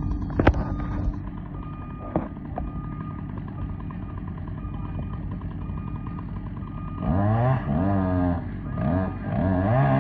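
Two-stroke chainsaw running low and steady, then from about seven seconds in revving up and down several times, with one longer hold near the end.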